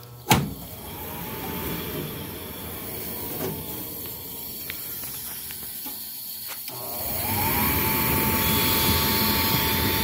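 A loud metal clunk just after the start, then a Lennox G50 gas furnace's draft inducer motor starting up and running with a whir and a rising whine. About seven seconds in it gets louder and settles into a steady whine. The technician thinks the draft motor sounds a little funny, though Lennox draft motors are known for being noisy.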